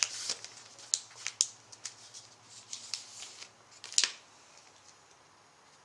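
Foil trading-card pack being opened and handled: a run of short, sharp crinkles of the wrapper, the loudest about four seconds in, then quiet.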